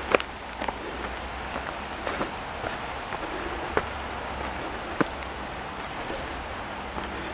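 Steady patter of rain falling through forest leaves, with scattered sharper taps.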